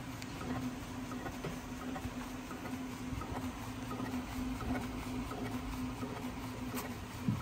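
SAGA A3 Pro decal cutting plotter running as it cuts sticker labels: a steady motor hum with many small faint ticks, and one sharper click near the end.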